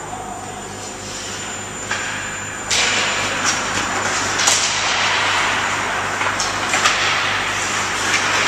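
Ice hockey play in a rink: skate blades scraping the ice and sticks and puck clacking, over a steady low hum. The scraping hiss gets louder about three seconds in, followed by a few sharp clacks.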